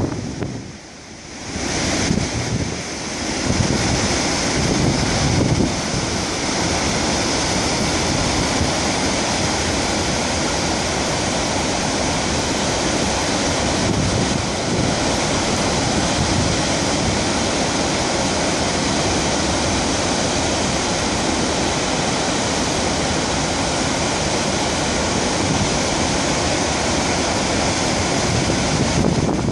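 Steady rushing of the Gullfoss waterfall's falling water, briefly quieter about a second in, with gusts of wind buffeting the microphone in the first few seconds.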